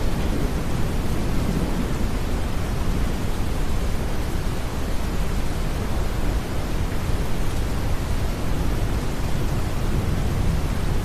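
Steady, deep brown noise, even and unbroken, blended with a soft rain ambience.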